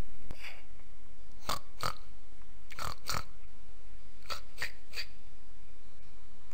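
Sound effect of a small pig sniffing: short sniffs in quick pairs, repeated every second or so, over a steady low hum.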